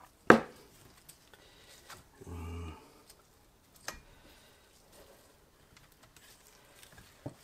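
Hand tools clicking and knocking against a Ducati two-valve cylinder head as it is stripped down. One sharp metal click about a third of a second in is the loudest, with lighter clicks later. A brief low hum comes in the middle.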